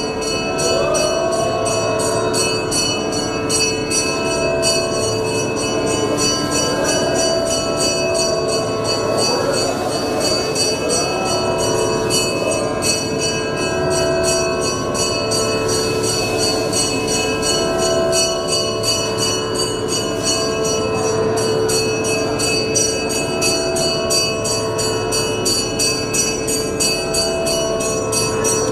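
Hindu temple bells ringing continuously during the lamp offering (arati). Under them run held musical notes with a few sliding melodic phrases.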